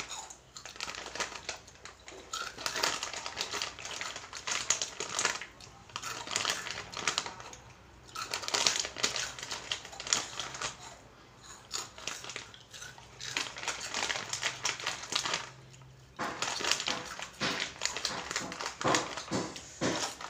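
An Oishi plastic snack packet crinkling while crunchy snacks are chewed, in bursts of crackling with short pauses between them.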